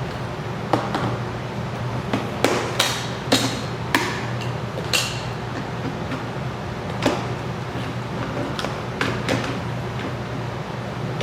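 Irregular sharp clicks and knocks, about ten of them, most close together in the first half and a few more later, from hand tools and small plastic and metal parts being handled for network cable termination. A steady low hum runs underneath.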